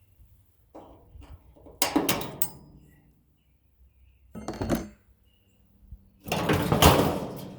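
Metal parts of a scrapped furnace clanking and clattering as they are handled, in four separate bursts; the last is the loudest and longest and rings on as it fades.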